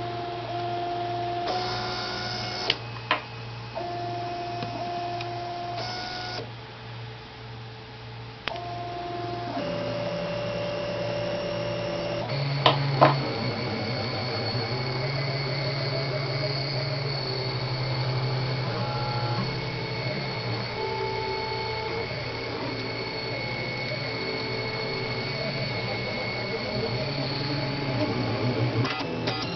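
Printxel 3D printer's stepper motors whining at the start of a print, the pitch stepping up and down as the print head changes moves, over a steady low hum. There are a few sharp clicks about three seconds in and again about thirteen seconds in.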